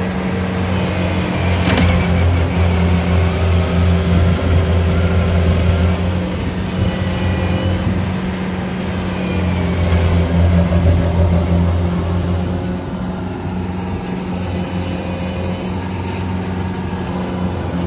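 Combine harvester diesel engine running hard under load, towing a combine bogged in mud; its sound swells twice and eases off near the end.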